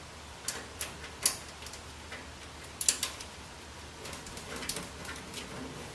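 Irregular light clicks and taps of small metal screws being handled and turned in by hand to fix a power supply into a computer case, the loudest about a second in and about three seconds in.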